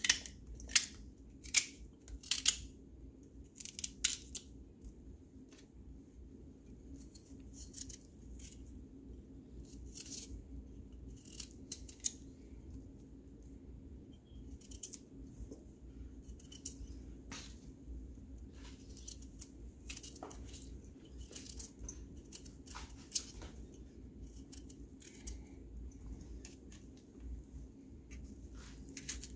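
Kitchen knife cutting raw carrot, potato and green pepper in the hand: a series of crisp cutting clicks, about one a second at first, then sparser and quieter.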